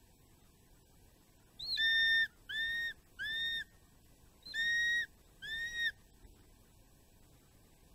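Changeable hawk-eagle giving five shrill whistled calls, three and then two, each about half a second long, steady in pitch and dipping briefly at the end.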